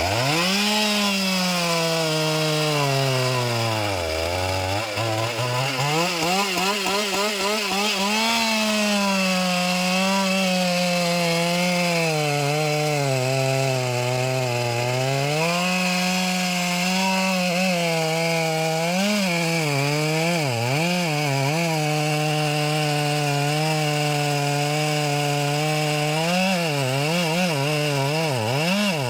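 Two-stroke chainsaw running hard while cutting a large anjili trunk, its engine pitch sagging under load and climbing back. It nearly bogs down about four seconds in, and dips sharply several times near the end.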